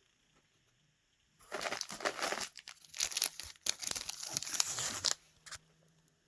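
Packaging crinkling and rustling as items are handled and pulled out of a parcel, starting about a second and a half in and stopping around five seconds in, with one short crinkle after.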